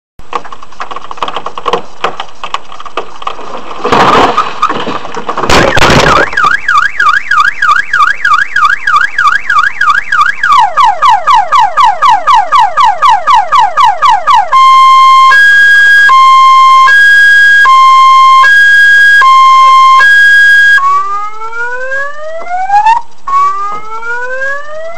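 A large tree falls onto a parked Audi sedan with two loud crashes about four and six seconds in. The car's alarm then sounds, cycling through its tones: a fast up-down warble, rapid falling sweeps, alternating two-tone beeps about once a second, and rising whoops near the end.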